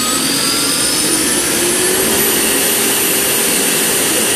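1963 Chrysler Turbine Car's A-831 gas turbine engine spooling up just after starting: a jet-like whine that rises in pitch, then levels off into a steady high whine about two seconds in as the turbine settles to idle.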